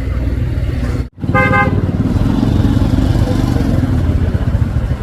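A motor vehicle running with a low, steady rumble, and a short horn toot lasting about half a second just after a brief break in the sound, about a second in.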